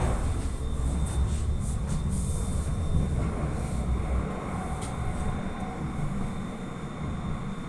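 Astra tram in motion, heard from inside the passenger cabin: a steady rumble of wheels rolling on the rails with a thin, steady high tone over it. The deepest part of the rumble eases off about four seconds in.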